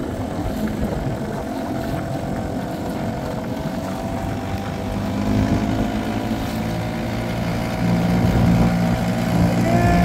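Small two-stroke 2 hp outboard motor running steadily, growing louder in the second half.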